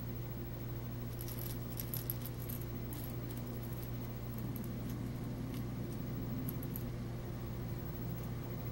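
A small bell rattling inside a plastic ball toy in a few faint, scattered jingles, over a steady low hum.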